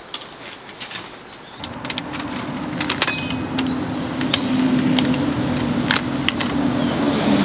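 Clicks and light knocks of a folding camp table's metal frame and rods being unfolded and handled. A steady low hum comes in about a second and a half in and grows louder.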